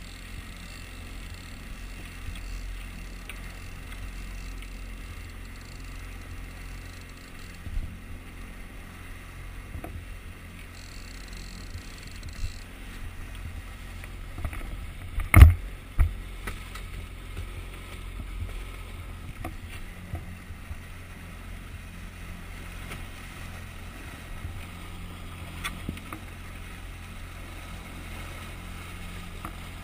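Outboard motor running steadily at trolling speed, with the boat's wake churning and splashing. One sharp, loud knock about halfway through.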